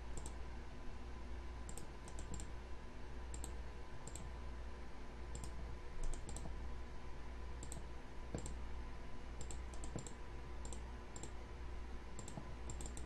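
Computer mouse clicking: short single clicks at irregular intervals, now and then two or three close together, over a steady low hum.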